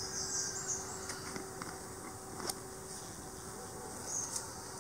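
Quiet outdoor background with high, faint insect chirring that swells near the start and again near the end. A few light clicks come from handling the jar and spice bottle.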